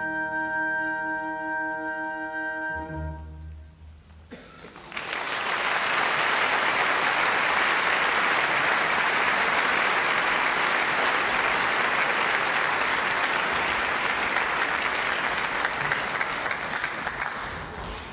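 A school symphony orchestra holds a final chord and closes with a short low stroke about three seconds in. After a moment's pause, audience applause starts and goes on, tailing off near the end.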